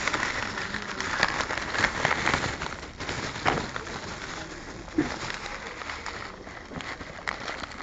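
Thin plastic carrier bag rustling and crinkling close to the microphone, with irregular crackles that ease off somewhat after about six seconds.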